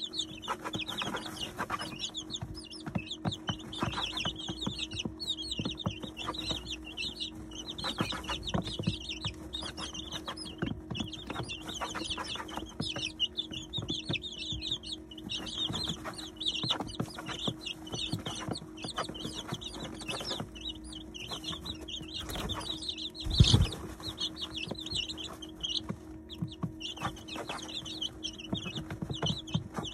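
A brooder of 19-day-old chicks peeping continuously while pecking at grain, with many quick taps and clicks of beaks on feed and litter. A steady low hum runs underneath, and one loud thump comes about two-thirds of the way through.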